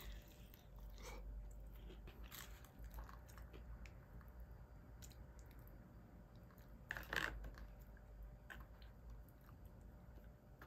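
Quiet eating sounds: chopsticks stirring and tapping in a plastic takeaway tray of thick sauce, with scattered small clicks and a louder short scrape about seven seconds in.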